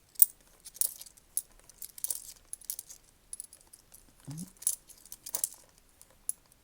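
10p coins clinking and jingling as they are handled and sorted by hand, in irregular sharp metallic clicks. The loudest click comes just after the start.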